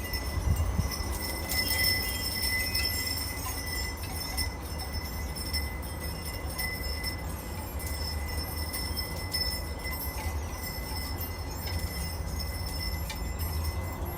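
Porch wind chimes ringing in a breeze, with a few metal tones sounding on and off, over a low rumble of wind.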